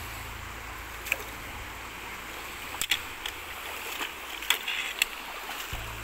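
Clear, shallow mountain stream running over stones, with a few sharp clicks and knocks as stones in the streambed are stirred.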